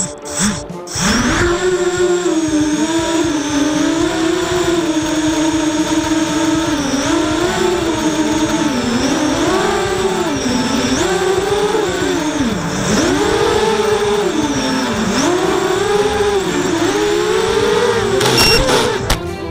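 Racing quadcopter's four brushless motors (RCX H1806 2400KV) on 5-inch propellers, spinning up about a second in and then whining in flight, the pitch rising and falling again and again with the throttle.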